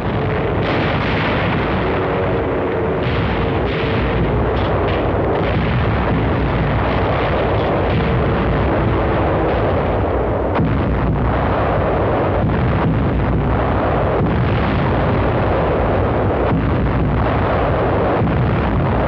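Heavy anti-aircraft gunfire and explosions: a dense, unbroken rumble of battle noise with rapid sharp cracks all through it.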